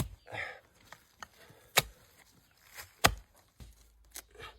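A spade chopping into rain-softened soil: three sharp strikes about a second and a half apart, then two lighter ones near the end, as the soil is dug away around yam tubers.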